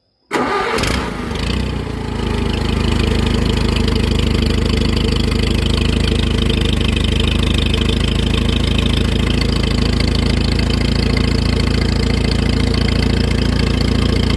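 1953 Allis-Chalmers WD tractor's four-cylinder engine starting: it catches about a third of a second in, runs unevenly for a moment, and within two seconds settles into a steady idle.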